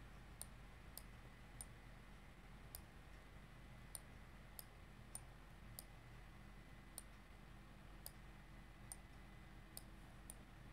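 Faint computer mouse clicks, about one a second at uneven spacing, over a low steady hum of room tone.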